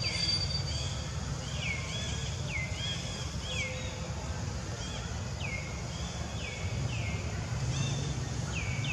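Outdoor ambience of birds calling: many short, quick calls that fall in pitch, repeated irregularly over a steady low rumble.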